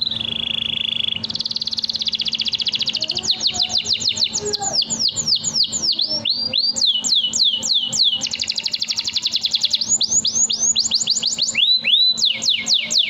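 Domestic canary singing one long, unbroken song. Fast rattling trills alternate with runs of sweeping, mostly falling whistled notes.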